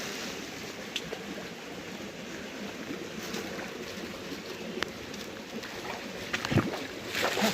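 Small forest stream running steadily, with a few faint clicks and a short louder rustle near the end.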